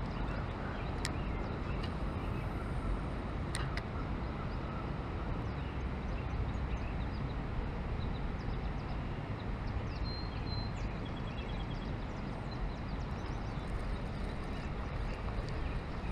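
Steady rush of flowing river water through a riffle, mixed with wind buffeting the microphone, with a few faint high chirps about ten seconds in.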